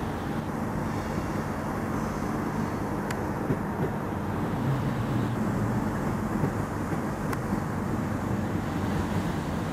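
SBB passenger train of green coaches rolling along the platform track, a steady low rumble with a faint click about three seconds in and again about seven seconds in.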